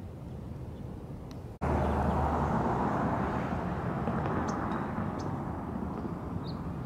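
Outdoor ambience: a steady rush of noise that jumps louder at an abrupt cut about a second and a half in, then eases slowly. A few faint, short high chirps sound in the second half.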